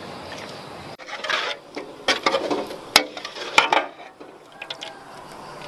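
Metal spatula scraping and clattering against a metal wok while scooping out thick cooked cassava-leaf stew. Two sharp clinks stand out near the middle, after which it goes quieter.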